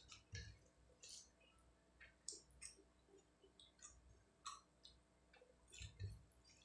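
Faint, irregular wet clicks and squelches of fingers mixing rice with fish curry on a plate, with a couple of soft low thumps near the start and about six seconds in.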